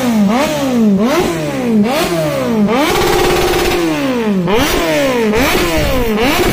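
Kawasaki Z-series motorcycle engine with an aftermarket slip-on exhaust being revved on the stand in quick throttle blips, each rising sharply and dropping back, about two a second. A little before halfway the revs are held up for under a second, then the blips resume, slower and longer.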